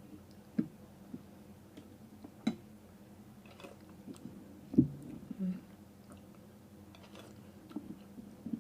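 A person eating boat noodles: a few short, scattered chewing and mouth sounds, the loudest a little before halfway through.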